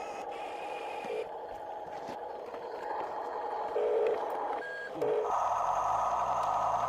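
Small electric motors of a radio-controlled toy excavator whining steadily, with short blips as the motors start and stop, then a louder whine starting about five seconds in.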